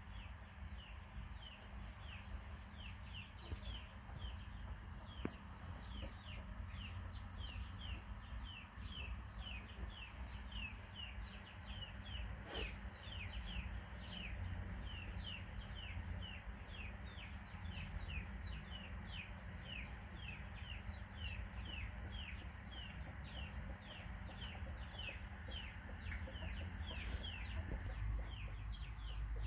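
A bird peeping steadily: short, high chirps that fall in pitch, two or three a second, over a steady low rumble.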